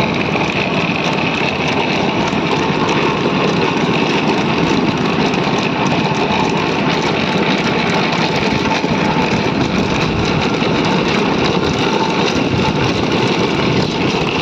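Bullock carts rolling along a paved road: a steady rattling rumble from the spoked wooden wheels on the tarmac, with the carts' rattles running through it.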